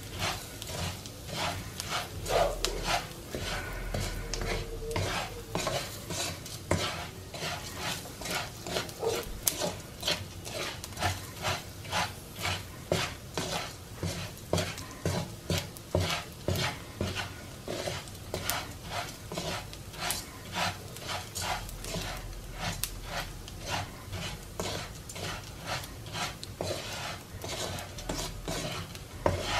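Plastic spoon scraping and stirring raw rice as it toasts in oil in a nonstick skillet, about two strokes a second, with the oil sizzling underneath. The rice is being browned with garlic before the beans go in.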